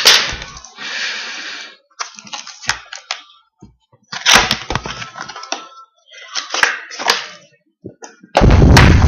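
Packaging of a hockey card box being opened by hand: plastic wrap crinkling and tearing in irregular bursts, with sharp snaps and clicks. A louder, fuller rustle comes near the end.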